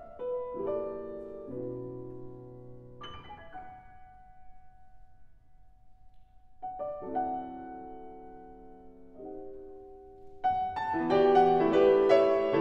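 Background piano music: slow chords that die away, a near pause in the middle, then a louder, fuller passage near the end.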